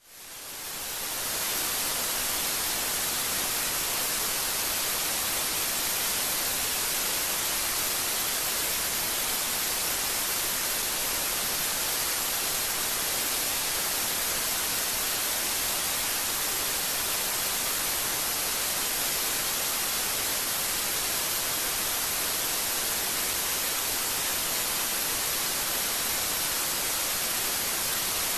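Steady static hiss like white noise, fading in over the first second or so and then holding even and unchanging, strongest in the high end.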